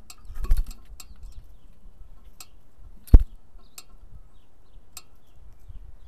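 Scattered sharp taps and clicks, a quick cluster in the first second and one loud low knock about three seconds in, over faint high bird chirps.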